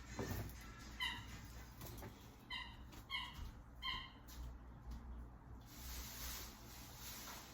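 A dog's squeaky toy squeaking in short, high-pitched squeaks as the dog chews it: one about a second in, then three more in quick succession.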